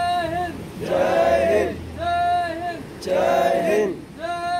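A group of voices singing in unison in short held phrases, two phrase shapes taking turns about once a second.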